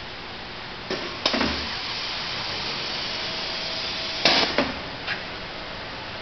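Steady mechanical hiss and hum, broken by sharp knocks: two about a second in, two more around four seconds in, and a lighter one soon after.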